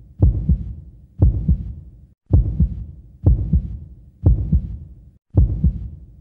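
Heartbeat sound effect: a deep double thump about once a second, six beats, each fading out before the next.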